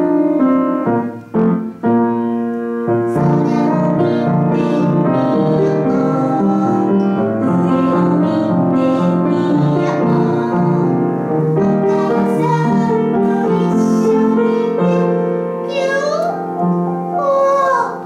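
Piano music playing a children's song melody, with singing over it.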